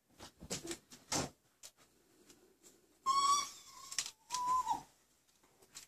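Someone whistling a steady note twice, about a second long and then half a second, the second dropping in pitch as it ends. Before it, a few light clicks of plastic LEGO pieces being handled.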